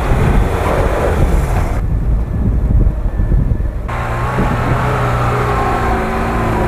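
Wind buffeting the microphone over a vehicle's low rumble. About four seconds in, an engine's steady running tone comes through clearly.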